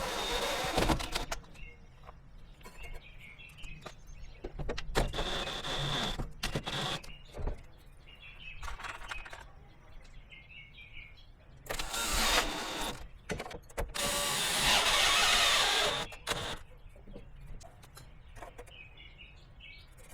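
A power drill driving screws into wood, in several short runs of one to two seconds with pauses between, the last run the longest. Birds chirp faintly in the pauses.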